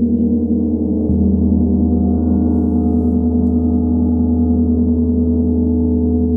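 Large Tibetan gong ringing on after being struck: a loud, steady, low hum with many overtones and a slow wavering beat, and no new strike.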